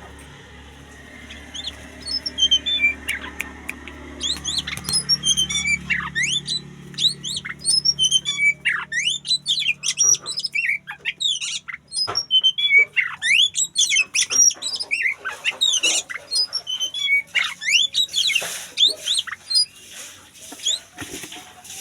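Oriental magpie-robin singing a fast, varied song of whistles, chirps and harsher squawky notes, starting about two seconds in and going on almost without pause. A faint low hum sits underneath during the first half.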